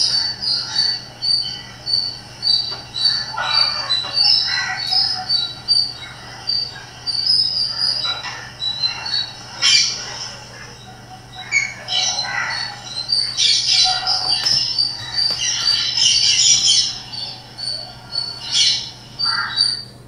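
Pet parrot chirping and squawking on and off: quick runs of short, high chirps mixed with harsher calls.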